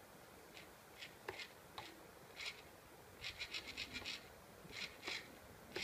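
RC car steering servo whirring in short high-pitched bursts as it is worked from the transmitter, with a quick run of about eight bursts in under a second near the middle. The servo has been converted to a 3-pin plug and is being tested on the car.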